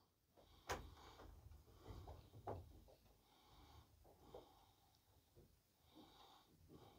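Faint creaking and knocking of a windmill's wooden running gear as the sails turn the mill, running without grinding. A sharp knock comes about a second in and another about two and a half seconds in, with softer creaks between and after.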